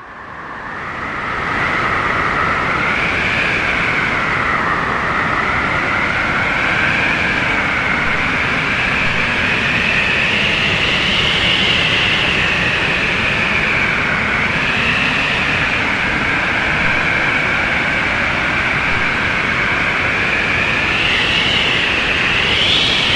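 Howling strong-wind sound effect: a loud, steady rush of wind carrying a whistling tone that slowly wavers up and down. It fades in over the first couple of seconds.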